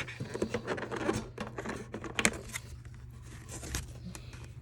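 Rustling and light clicks of packaging and cards being handled while a Pokémon collector's tin is unpacked, busiest in the first three seconds and fainter after.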